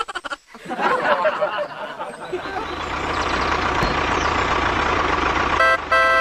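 A vehicle engine runs with a steady low rumble that builds up over the first couple of seconds. Near the end a horn honks twice, the second blast longer.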